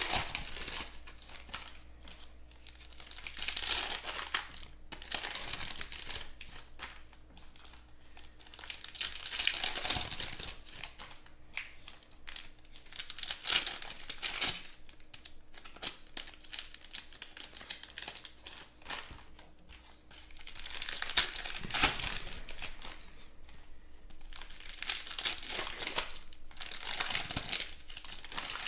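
Foil wrappers of Panini Mosaic Football hobby card packs being torn open and crinkled by hand. The sound comes in repeated bursts a few seconds apart, with lighter rustling and clicks between them.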